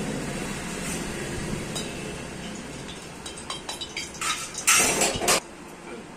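Steel kitchen utensils clinking: a metal spoon knocking and scraping against a steel plate, with a short loud clatter about five seconds in.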